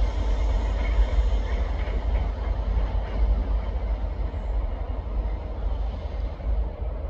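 Class 67 diesel locomotives, with their two-stroke V12 engines, and tank wagons of a railhead treatment train running as the train draws away. There is a steady low rumble, and the higher sound slowly fades over the last few seconds.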